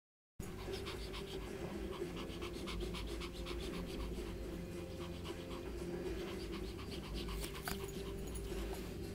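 A puppy panting in quick, even breaths, over a steady low hum.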